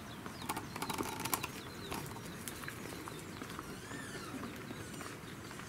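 Outdoor ambience with birds chirping and whistling in high, wavering notes, and a short run of clicks and rustles about half a second to a second and a half in.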